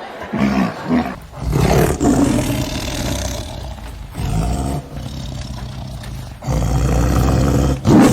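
A farm animal calling in several long, deep calls, the longest lasting two to three seconds, with a short one in between.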